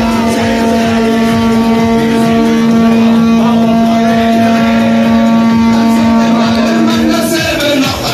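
Large farm tractor pulling a parade float running close by, its engine giving a steady droning hum that drops out about seven seconds in.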